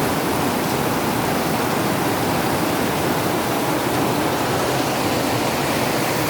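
Heavy rain pouring down, a loud, even, unbroken rushing hiss.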